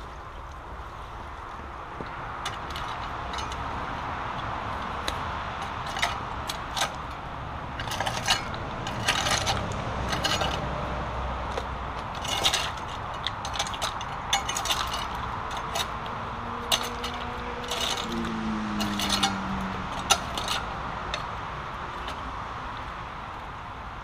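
A long-handled rake scraping and clattering through stones, silt and debris in a shallow brook, raking out a channel for the water: an irregular run of scrapes and clicks, thickest in the middle. Under it runs a steady rush of trickling water.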